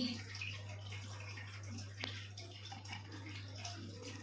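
Faint sounds of honey being poured and stirred into a banana-leaf powder paste with a spoon, a few soft clicks among them, over a steady low hum.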